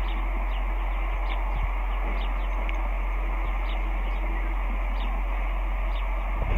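Steady hiss and low hum with faint, short high chirps that drop in pitch, coming irregularly every half second to a second.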